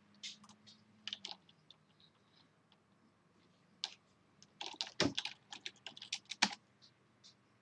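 Typing on a computer keyboard: a few scattered keystrokes, then a quick run of keys about four and a half seconds in.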